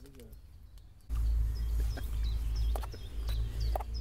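Small birds chirping and singing over a steady low rumble that starts abruptly about a second in, with a few light clicks and knocks.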